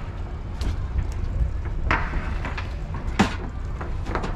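Several sharp knocks and clanks of hard gear being handled and set down, the loudest about three seconds in, over a steady low rumble.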